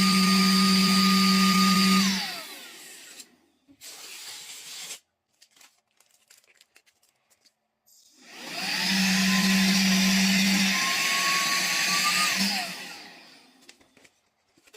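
Palm-sized handheld vacuum cleaner with a brushless motor, running with a steady high whine, then switched off and winding down about 2 s in. It is switched on again a few seconds later, its whine rising as it spins up, runs for about four seconds, then falls away as it stops.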